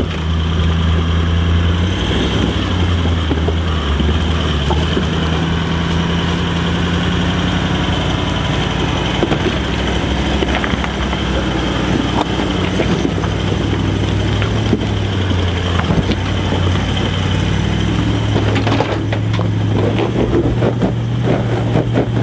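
Four-wheel-drive engines running at low revs, a steady drone whose pitch steps up and down as the throttle is eased on and off while crawling over a rocky track. A few knocks come near the end.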